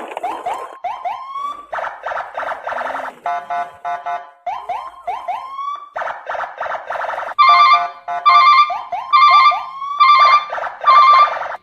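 Electronic siren sound effect: short rising whoops alternating with stretches of rapid pulsed beeping. From about seven and a half seconds in, louder pulsed blasts come roughly once a second between the whoops.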